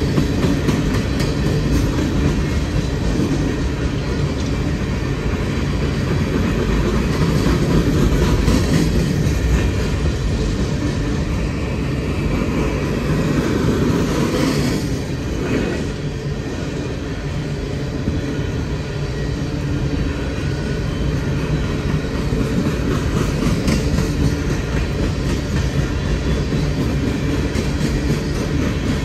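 Empty steel coal hopper cars rolling past on the rails, a steady rumble with wheels clicking over rail joints.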